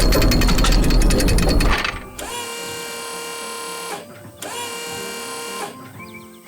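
A loud, rapid mechanical rattle, like a drill or rock breaker hammering, that stops about two seconds in and is followed by two steady, held machine whines, each about a second and a half long.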